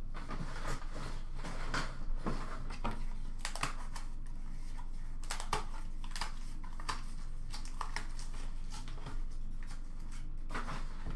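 Scattered light clicks, taps and rustles of hands handling a trading card box, its cardboard lid and the cards and wrappers inside, over a low steady hum.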